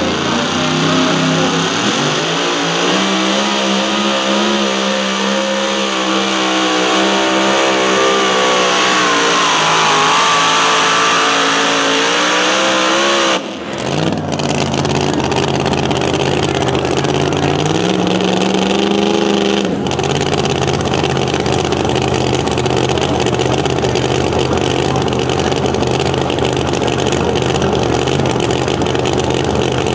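Super modified two-wheel-drive pulling truck's supercharged engine at full throttle under the load of a pulling sled, its pitch climbing and wavering. Then, after an abrupt break, the engine idles at the end of the pull with one short rev.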